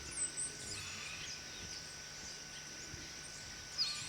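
Tropical forest ambience: a steady high insect drone with scattered faint bird chirps and short calls, two of them louder, about a quarter second in and near the end.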